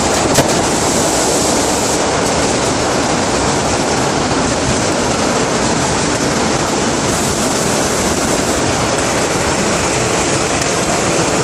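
Vintage New York City subway train running at speed, a steady loud noise of wheels on the rails and the car body moving. A single click about half a second in.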